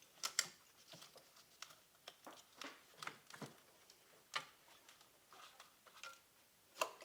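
Faint, irregular clicks and rustles of a wiring harness and its plastic connector being handled and fished around in an engine bay, with the sharpest ticks about half a second in and near the end.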